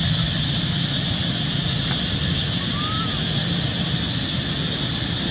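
Steady outdoor background noise, a high hiss over a low rumble, with one short rising-then-falling chirp about three seconds in.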